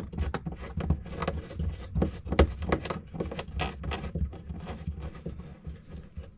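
Heavy power cable and small metal hardware being worked onto a bus-bar terminal by hand: irregular clicks, taps and rubbing, several a second.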